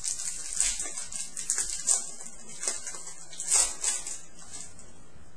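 Football trading cards being handled and flipped through: a series of short papery swishes and snaps at irregular intervals.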